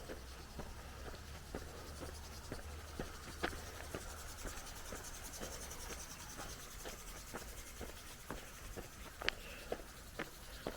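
Footsteps of a person walking steadily along a trail, about two steps a second, with a few sharper clicks near the end.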